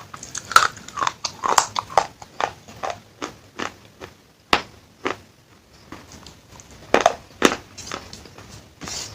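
Close-miked biting and chewing of hard baked-clay pieces from a claypot handi: sharp, irregular crunches, dense for the first few seconds, then sparser, with two loud crunches about seven seconds in.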